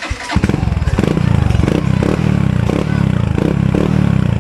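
Honda Wave 110 motorcycle's single-cylinder four-stroke engine running through an aftermarket Apido V3 chicken pipe exhaust. The deep, rapid exhaust pulse comes in sharply about a third of a second in and then runs steadily.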